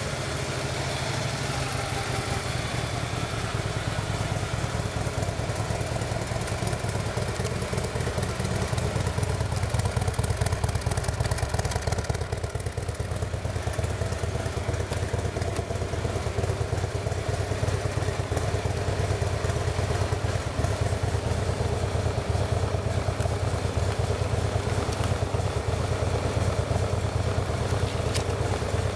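Harley-Davidson CVO Road Glide Ultra's 110-cubic-inch Screamin' Eagle Twin Cam V-twin idling steadily.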